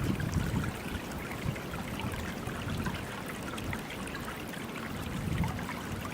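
Water flowing and trickling steadily, with an uneven low rumble of wind on the microphone.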